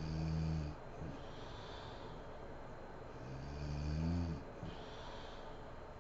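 A sleeping woman snoring: two low-pitched snores on the in-breath, the first ending less than a second in and the second building to a peak about four seconds in. Each is followed by a quieter, breathy out-breath.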